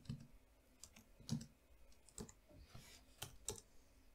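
Faint, irregularly spaced keystrokes on a computer keyboard as a short terminal command is typed and entered.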